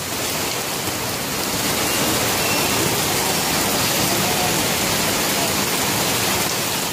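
Heavy rain pouring steadily onto a wet street, a dense, even hiss.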